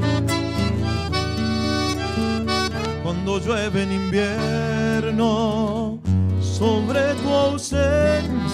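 Chamamé played on a piano accordion over strummed acoustic guitars, an instrumental passage of the tune; the music dips briefly about six seconds in, then goes on.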